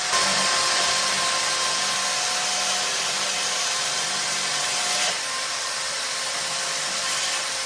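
A power tool cutting into the steel dropouts of a bicycle frame to widen them: a steady whir with a hissing grind that eases off about five seconds in.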